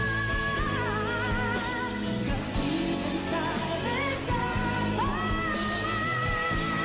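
Pop ballad with a female singer holding long notes with vibrato over a band accompaniment.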